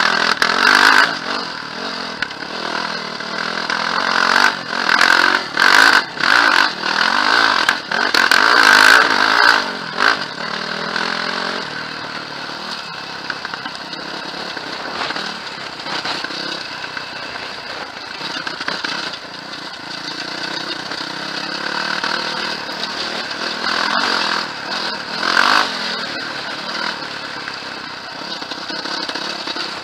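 Quad bike engine running under way, revving up and easing off in repeated swells during the first ten seconds and again a little past twenty seconds, steadier in between.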